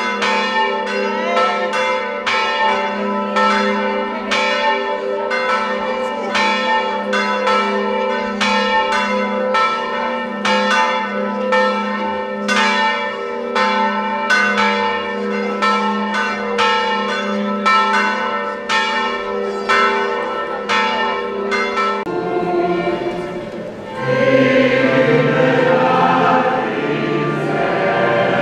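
Church bells ringing, struck over and over at about two strikes a second, each ringing on into the next; they stop about 22 seconds in. After a brief lull a choir starts singing, louder than the bells.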